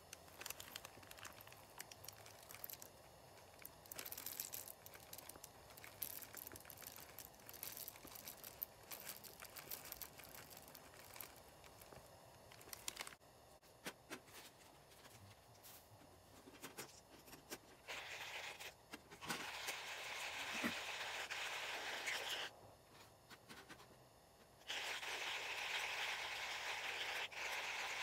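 Manual coffee grinder grinding coffee beans: a dense crunching in two spells, the first about two-thirds of the way in and the second, after a short pause, near the end. Before that, scattered small clicks and rattles as the grinder is handled.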